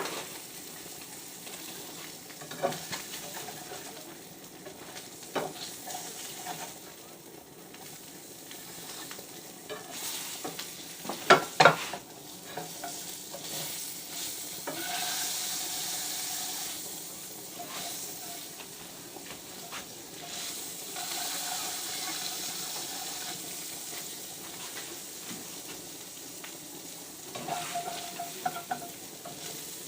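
Fish pieces frying in a hot pan, sizzling steadily. A few light knocks can be heard, with two sharper knocks about eleven seconds in.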